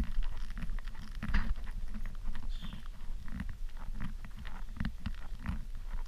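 Footsteps of a hiker walking a forest trail and boardwalk: dull low thuds roughly twice a second, mixed with sharp little clicks and scuffs.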